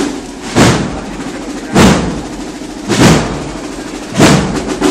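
Procession band drums beating a slow, steady march: four heavy beats about a second and a quarter apart, with lighter drumming between them.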